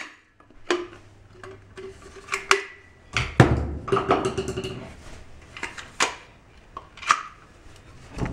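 Clicks and metallic clanks of a caulking gun being handled while an empty caulk tube is swapped out, with a heavier clunk about three seconds in.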